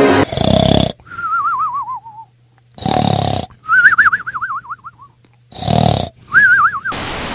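Cartoon-style snoring, three times over: a rasping snore on the in-breath, then a wavering whistle that slides down on the out-breath. A short burst of hiss comes near the end.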